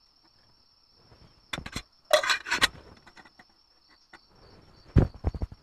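Crickets trilling steadily, while camp cooking gear is handled: a burst of scraping and clattering about two seconds in and a few dull knocks near the end.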